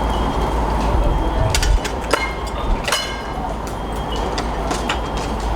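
Steady mechanical rumble of idling vehicle engines, with a few sharp clanks about two to three seconds in.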